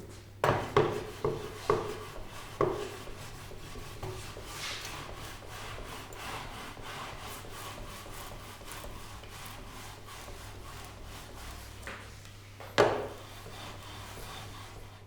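A hand tool rubbing back and forth on wood in quick, even strokes, as in rasping or sanding a wooden loudspeaker cabinet. A few sharp knocks come at the start, and one loud knock comes near the end.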